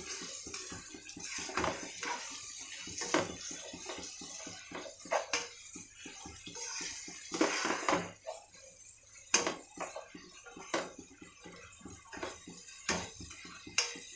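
Vegetables frying in oil and ghee with a steady sizzle, while a spatula scrapes and knocks against the pan every second or so as they are stirred.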